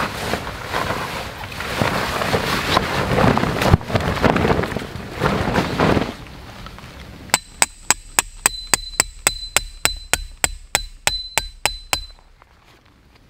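Heavy tent fabric rustling and flapping as it is shaken out and spread on the ground. About seven seconds in, it gives way to a run of about eighteen quick ringing metal strikes, about four a second: a tent peg being hammered into the ground.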